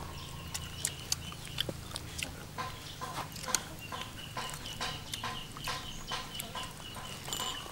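Chickens clucking in short repeated notes, with a thin steady high tone joining from about four seconds in.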